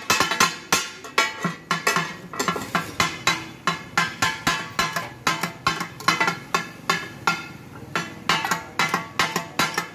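Two flat metal spatula blades rapidly striking a steel griddle while chopping mutton offal for tak-a-tak: a fast, uneven clatter of ringing metallic clanks, about four or five a second, slackening briefly around seven seconds in.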